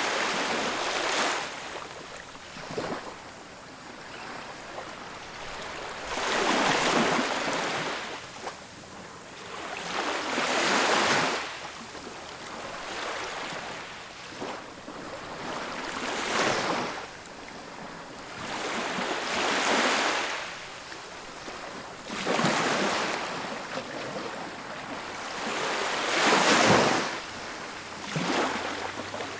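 Ocean surf breaking on a beach: a wave swells in and washes out every three to five seconds, about seven times, with a softer hiss of water between.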